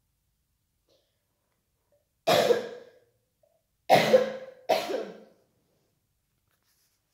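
A person coughing three times: one cough, then two more close together.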